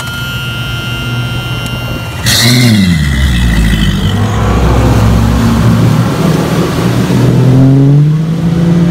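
Mercury Pro XS outboard engine on a bass boat. A steady high whine for about two seconds, then the engine comes in loud, revving up and down, and climbs steadily in pitch near the end as the boat speeds up.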